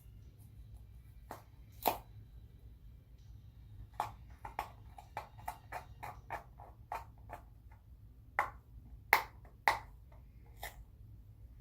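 Hands handling small objects: light clicks and taps, several a second from about four seconds in, with a few louder knocks near the end, over a low steady hum.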